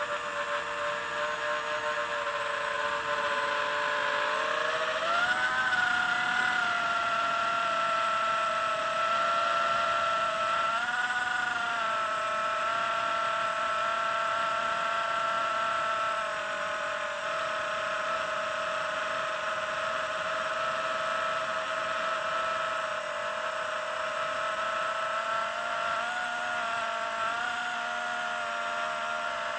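FPV quadcopter's brushless motors and propellers whining in flight. The pitch climbs about four to five seconds in and rises again briefly around eleven seconds with more throttle, then holds steady, and wavers up again near the end.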